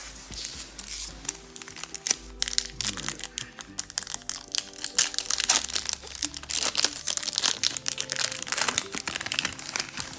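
Foil Yu-Gi-Oh booster pack wrapper crinkling and tearing as it is ripped open by hand: a dense run of quick crackles, over steady background music.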